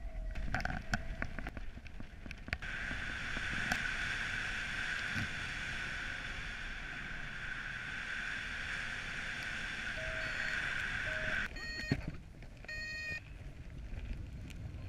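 Air rushing past the microphone of a paraglider pilot's camera in flight: a steady hissing rush with scattered knocks. Near the end it gives way to a few short high tones.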